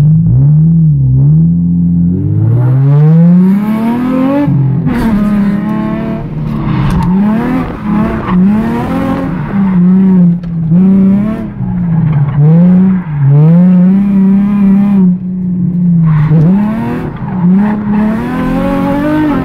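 Nissan 350Z's V6 engine heard from inside the cabin on a drift run, revving up and down over and over as the throttle is worked, with tyres squealing.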